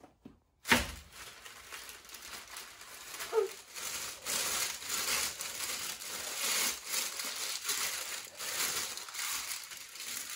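Wooden rolling pin pushed back and forth over gingerbread dough on baking parchment, the paper crinkling and rustling with each stroke. A sharp knock about a second in is the loudest sound.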